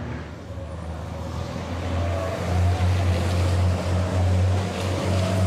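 Racing trucks' diesel engines running at speed, a low steady engine drone that grows louder about two seconds in.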